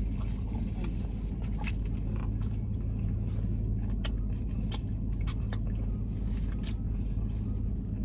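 Small scattered clicks and taps of eating, spoons and plastic food containers, over a steady low hum.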